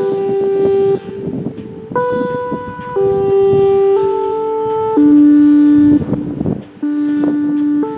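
Warning-system test signal: a slow run of held, horn-like pitched notes, each about a second long, stepping up and down in pitch over a steady rumble. The lowest and loudest note comes about five seconds in.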